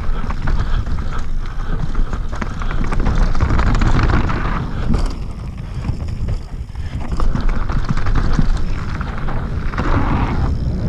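Mountain bike descending a dirt trail at speed, heard from a camera on the bike or rider: wind buffeting the microphone, with the bike rattling and knocking over bumps. It eases off briefly about six seconds in.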